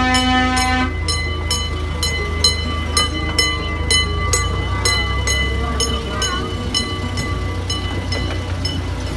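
A ride-on miniature train's horn sounds until about a second in. Then a bell rings steadily, about two strokes a second, over the low steady rumble of the train running along the track.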